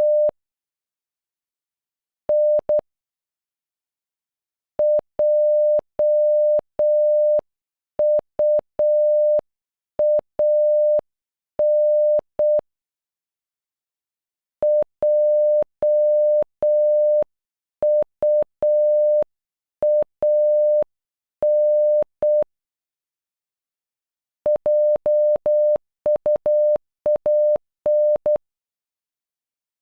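Morse code for "JUAN" (.--- ..- .- -.) sent as a steady electronic beep tone in short and long beeps. It is spelled out twice at a slow pace, then once faster near the end.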